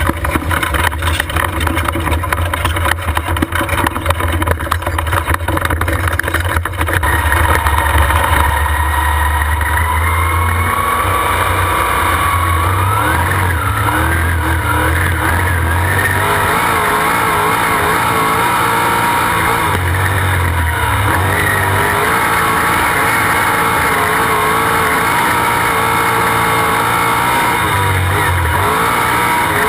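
Sprint car's V8 engine heard from the onboard camera in the cockpit. For the first several seconds it runs rough and uneven, then it gets louder and steady, with the pitch rising and falling as the car laps the dirt track.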